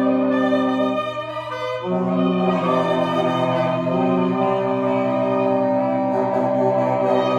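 Reed ensemble of clarinet, alto and tenor saxophones playing free improvisation: several long held tones overlapping in a sustained cluster, with the lower voices briefly dropping out about a second in and coming back.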